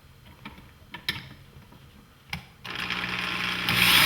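A few light clicks of handling, then a cordless drill starts driving a screw into the wooden cabinet about two and a half seconds in, its motor running steadily and getting louder near the end as the screw goes in.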